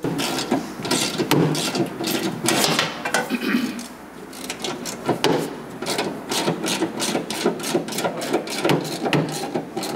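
Repeated clicks and scrapes of a hand tool working the fasteners of a car's inner wheel-arch panel as it is refitted. The clicks are irregular at first, then come about two to three a second.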